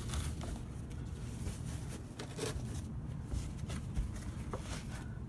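Soft fabric rustling and a few light taps and clicks as a dark cloth blind is pressed and tucked into a window frame by hand.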